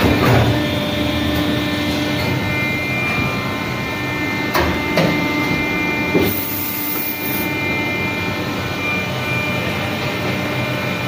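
Plastic injection moulding machine running with a steady hum, with a few sharp knocks as the moulded box part is taken from the open mould, and a short high hiss about six seconds in.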